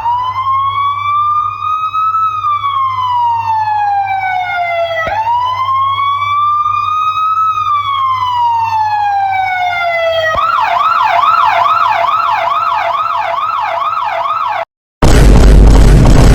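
Electronic emergency-vehicle siren sound effect: two slow wails rising and falling over about five seconds each, then a fast yelp of about three sweeps a second. It cuts off, and after a short gap a loud, rough blast starts near the end.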